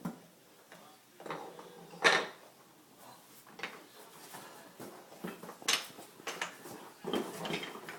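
Plastic toy train track and trestle pieces being handled, clicking and knocking together, with a sharp knock about two seconds in and another near six seconds.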